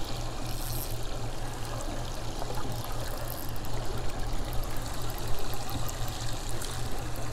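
Water lapping and splashing against a small boat's hull, with a steady low hum underneath.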